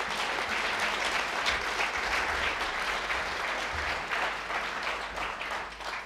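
Audience applauding: steady clapping of many hands.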